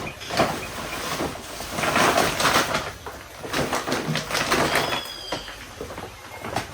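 Irregular knocking, clattering and scraping, busiest about two seconds in, with a couple of brief high whistled notes about five seconds in.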